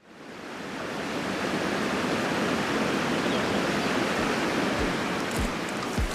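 Steady rushing of water, fading in over the first second, with a few deep thuds about every half second near the end.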